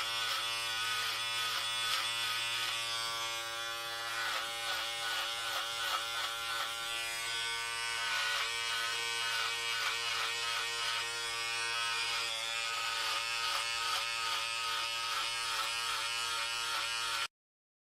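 Electric hair clippers buzzing steadily, the tone wavering slightly. The buzz cuts off abruptly near the end.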